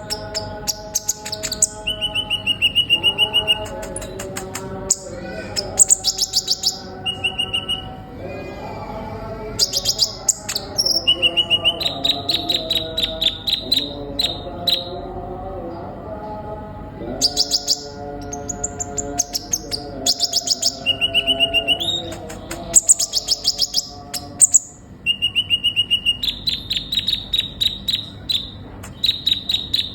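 Kolibri ninja sunbird singing vigorously: rapid runs of sharp, high chirping notes and short trills in repeated phrases separated by brief pauses. A lower, steady tonal sound runs underneath.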